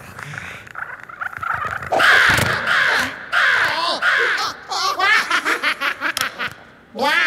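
Cartoon Rabbid rabbits' wordless voices: a loud yell with a thud about two seconds in as one falls, then the other's rapid, choppy laughter.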